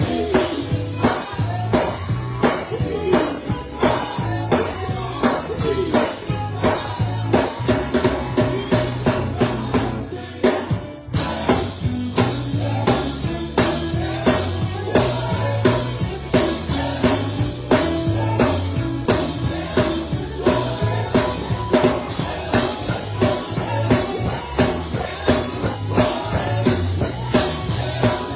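Music with a steady drum-kit beat over a bass line. It thins out briefly about ten seconds in, then the beat picks up again.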